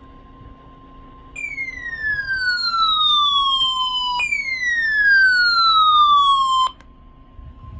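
Midland WR120 weather radio's alert siren sounding for the NOAA Weather Radio Required Weekly Test. It gives two loud falling electronic sweeps of about three seconds each, then cuts off abruptly. Under it a fainter steady warning tone near 1 kHz plays throughout.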